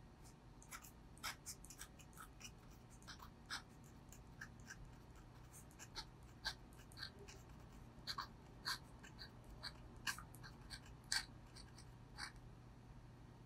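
Brause Steno "index finger" dip-pen nib scratching across paper in short, irregular strokes as it writes by hand. The sound is faint, with the sharpest scratch shortly before the strokes stop near the end.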